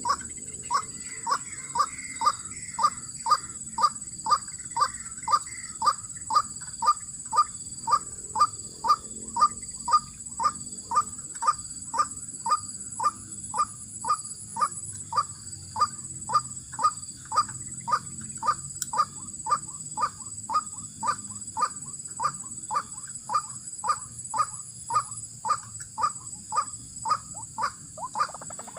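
White-breasted waterhen calls (ruak-ruak) repeated in a steady, monotonous rhythm, a little under two calls a second, used to lure swamp birds. A steady high-pitched whine runs underneath.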